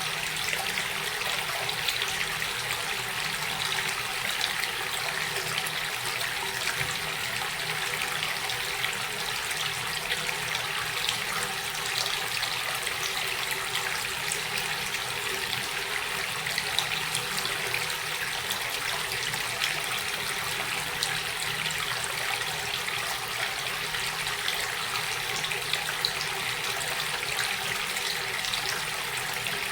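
Running water flowing steadily, an even splashing hiss that goes on without a break.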